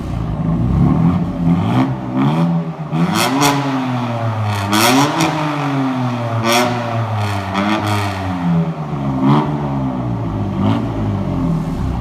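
BMW M4's S55 twin-turbo inline-six being revved repeatedly while the car stands, about six blips that rise and fall in pitch, with short sharp cracks near several of the peaks. It breathes through 3-inch catless downpipes, which give the exhaust a deeper, more aggressive tone.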